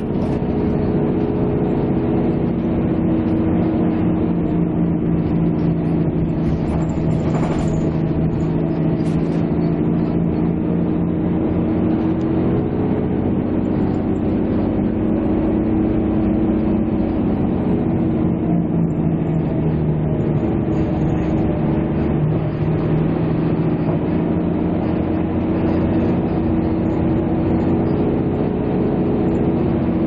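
A vehicle engine running at a steady speed, a constant low drone with a slightly wavering pitch.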